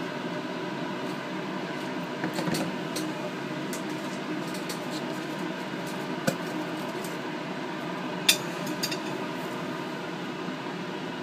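Steady fan hum, with a few light clicks and taps from plastic culture vessels and metal forceps being handled, the sharpest about six and eight seconds in.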